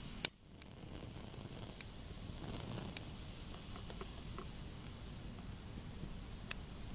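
A single sharp click just after the start, followed by faint steady background noise with a few small ticks.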